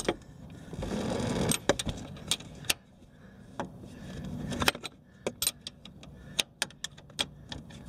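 Hand wrench clicking and clinking against metal as it is fitted and worked on a threaded part at the top of a scooter's front fork: an uneven run of sharp metallic clicks, coming faster near the end, with some rustling from hand movement.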